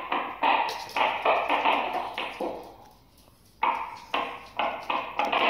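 Fidget flip stick knocking and clattering on a wooden tabletop as it is flipped and fails to land upright. A quick run of sharp knocks, a pause of about a second, then another run.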